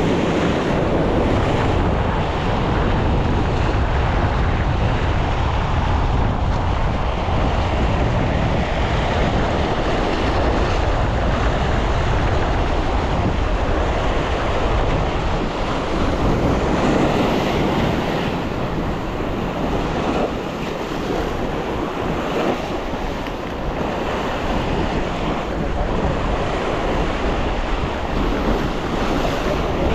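Sea surf breaking and washing over shoreline rocks in a steady rush, with wind buffeting the microphone and adding a low rumble.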